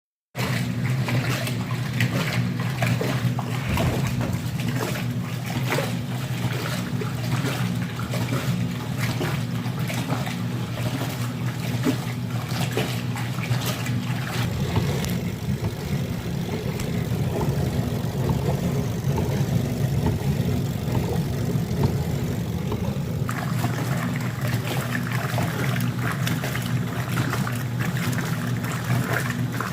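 Mueller Plus washing machine running a wash cycle: a steady motor hum under irregular sloshing of water and laundry. The splashing thins for a while past the middle, then picks up again.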